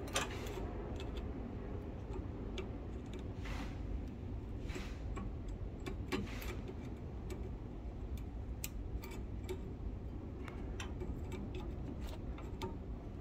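Small irregular metallic clicks and occasional soft scrapes as a hand-held blade works into a brazed copper pipe joint clamped in a vise, over a steady low background noise.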